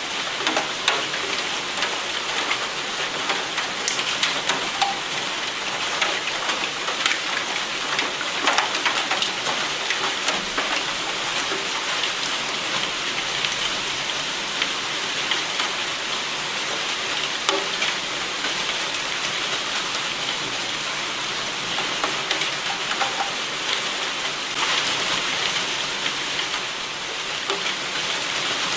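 Steady rain, with many separate drop hits standing out from the even hiss throughout.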